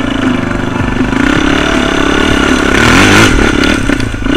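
Quad bike (ATV) engine running under throttle on a trail, revving up with rising pitch a little before three seconds in.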